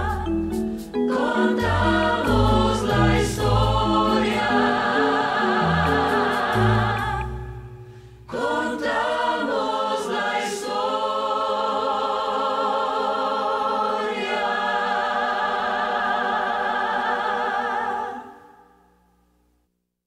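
Choir singing the close of a musical-theatre finale over a stepping bass line. After a brief drop about eight seconds in, the voices hold one long final chord with vibrato, which fades out near the end.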